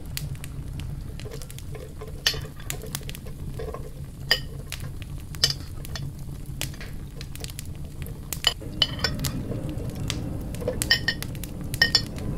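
Kitchen utensils tapping and clinking against a blender jar and bowl as diced onions are tipped in, over a steady low hum. The clinks come thicker and ring more in the last few seconds.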